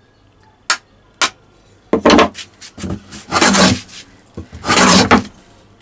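Two sharp taps of a hammer on the iron of a wooden hand plane, setting the blade deeper. Then several rasping strokes of the wooden plane along a wooden board, the longest near the middle and near the end, with the deep-set blade taking a thick shaving.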